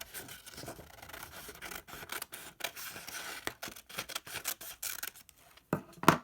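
Scissors cutting through a folded paper heart, a series of short scraping snips, with a louder snip near the end.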